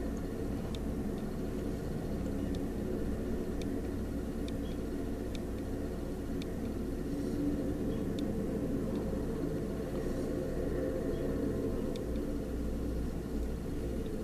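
Passenger train cars rolling past: a steady low rumble of wheels on rail, with a sharp click now and then.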